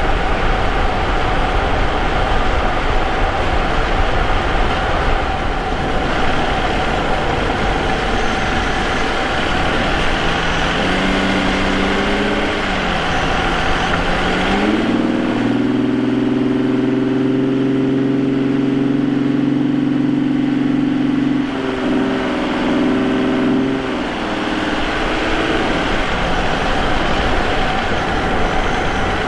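Vauxhall Omega 3.2 24v V6 engine running while the car is driven, picked up by a microphone in the engine bay near the K&N air filter, over a steady wash of road and tyre noise. About a dozen seconds in, the engine note dips and rises, then holds a steady pitched drone for about six seconds before sinking back under the road noise.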